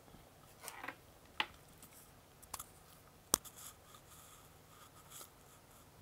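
Handling noise from fingers adjusting a wired earphone and touching the phone: a few sharp clicks, the loudest a little past three seconds in, with soft rubbing between.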